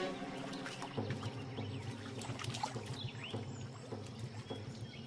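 Water splashing and sloshing as two male platypuses fight in a river, with many small splashes and drips. A few short high chirps come through near the middle.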